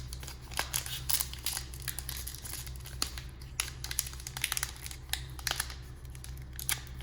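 Crinkling and crackling of a trading-card pack wrapper being handled and pulled at as someone tries to tear it open, in short irregular crackles over a steady low hum.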